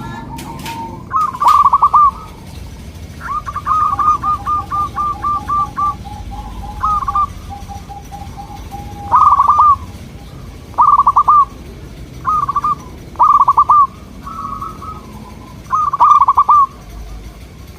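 Zebra doves (perkutut) cooing: repeated short bursts of quick staccato coo notes, with a lower-pitched bird answering in a long run of notes beneath a higher one partway through.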